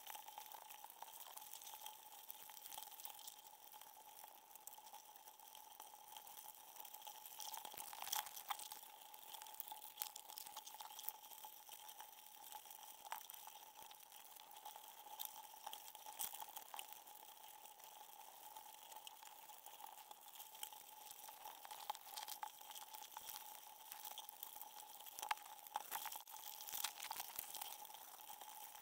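Faint underwater ambience at a baited crab trap: a steady hiss with a thin hum, dotted all through with small clicks and crackles.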